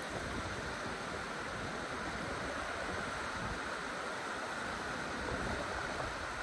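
Steady rush of river water and wind, with some low wind buffeting on the microphone.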